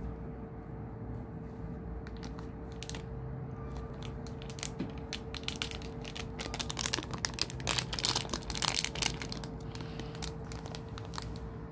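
Plastic cat-treat packet crinkling and crackling while a cat noses and mouths at it, the crackles thickest in the middle stretch.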